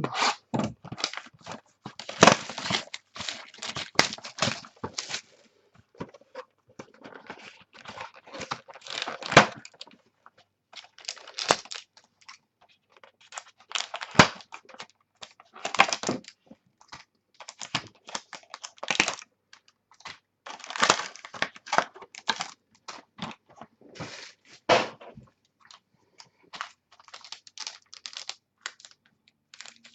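Wrapping being torn off and crinkled as a sealed box of 2013 Playbook football cards is opened, in irregular scratchy bursts with short pauses.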